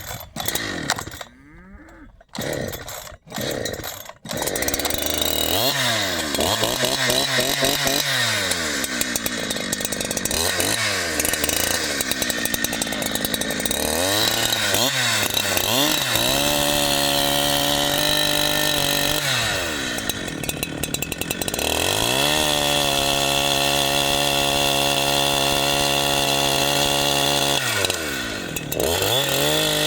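Husqvarna 372 two-stroke chainsaw catching about four seconds in after a few short broken sounds, then revving up and down. It runs at steady high speed for long stretches while cutting, dropping back between them. Its chain is dull from digging into dirt, by the owner's account.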